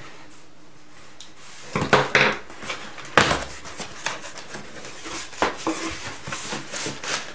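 A box and its packaging being handled and unpacked: rustling with scattered knocks and clatters, the sharpest about three seconds in.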